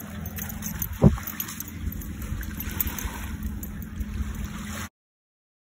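Wind buffeting the phone microphone in a steady low rumble, with one sharp thump about a second in; the sound cuts off abruptly near the end.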